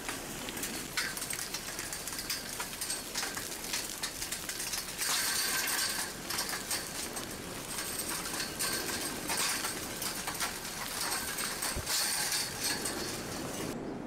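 Blocky a'a lava flow advancing, its cooling crust breaking and tumbling with many sharp glassy clinks and crackles, thickest for a second or so about five seconds in.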